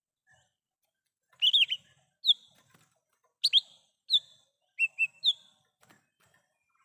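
Lesser green leafbird (cucak ijo mini) calling: a string of short, sharp whistled notes, some swooping up and some down, given in small clusters over a few seconds. A faint click near the end.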